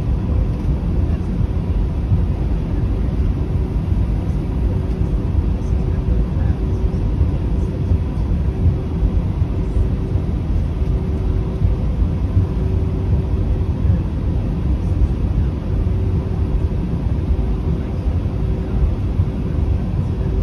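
Steady low rumble heard inside the cabin of an Airbus A320 taxiing, its two IAE V2527-A5 engines at idle. A faint steady hum and a faint tone that pulses on and off sit over the rumble.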